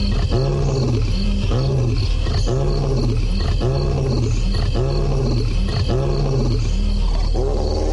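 Male lion roaring: a long run of deep grunting calls at an even pace, about three every two seconds.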